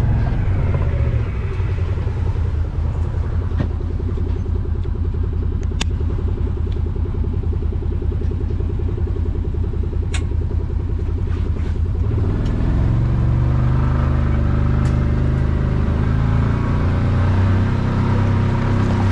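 A vehicle engine running steadily while driving, its note shifting and growing louder about twelve seconds in, with a few sharp knocks along the way.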